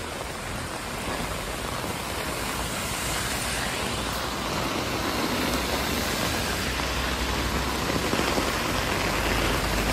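Heavy rain pouring steadily onto the road and pavement. A city bus's engine grows louder near the end as the bus pulls up close by.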